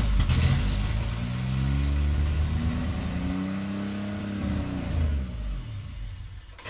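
GM 3.4-litre (3400) V6 running on gasoline poured down the intake, with no fuel pump connected. The revs climb, hold for a couple of seconds, then sag and the engine dies out about five and a half seconds in as the poured fuel runs out.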